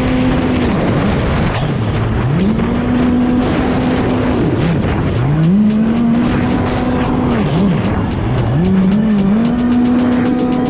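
Kommander GP1 stand-up jet ski engine running at high revs, its pitch dropping off and climbing back up three times as the throttle is eased and reapplied, over a steady rushing hiss.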